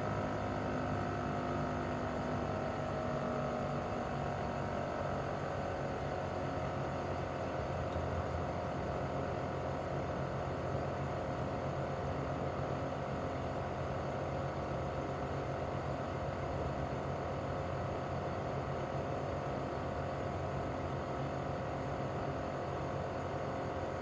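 Mitsubishi Heavy Industries SRC2221T air conditioner outdoor unit running in cooling mode: its inverter-driven single rotary compressor and fan give a steady hum with a whine of several tones. Over the first few seconds the tones drift slightly lower in pitch, then hold steady.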